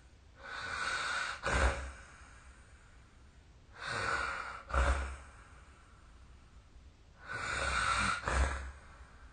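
A sleeping person snoring: three breaths about three and a half seconds apart, each a drawn-out noisy breath that ends in a short, sharp snort.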